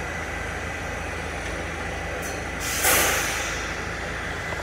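R46 subway car standing in a station with a steady low hum, and about three seconds in a sharp burst of compressed air hissing out that fades within about half a second.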